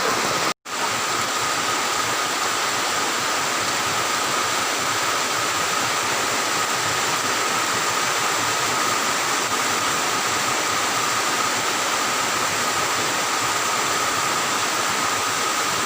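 Heavy rain pouring down, a dense steady hiss, with a faint steady high tone running under it. The sound drops out completely for a split second just after the start.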